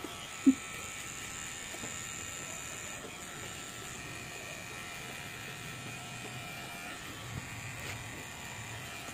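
Cordless electric hair trimmer running with a steady high buzz as it clips hair up the back of a boy's neck. One brief louder sound about half a second in.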